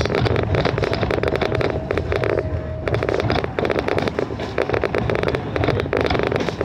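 Moving passenger train car: dense, rapid rattling and clatter of the car and its wheels on the track over a low rumble. A thin steady whine joins in about a second in and stops after under two seconds.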